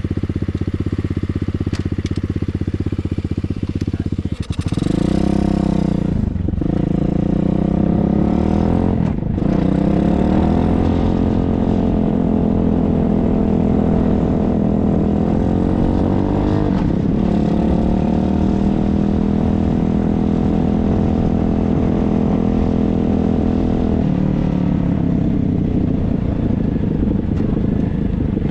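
Hawk 125 dirt bike engine running steadily, then revved as the bike pulls away on a test ride. Its pitch rises and breaks off twice in quick succession, once about six seconds in and again about nine seconds in, as it is shifted up. It then holds a steady pitch under way and eases off near the end.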